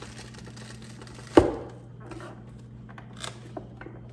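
Vidalia Chop Wizard plunger pressed down, pushing bell pepper through its blade grid with one sharp, loud clack about a second and a half in, followed by a few lighter clicks.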